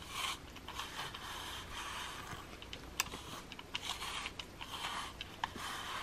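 Plastic grooming brush drawn through a cat's fur in repeated soft, scratchy strokes, with a sharp click about three seconds in.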